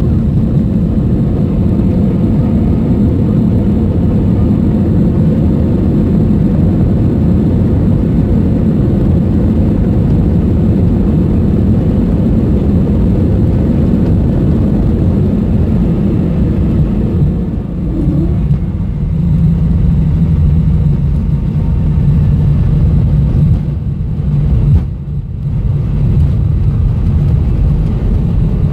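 Cabin noise of an Airbus A320 taxiing: a loud, steady low rumble from its jet engines running at taxi power. The level dips briefly twice in the last third.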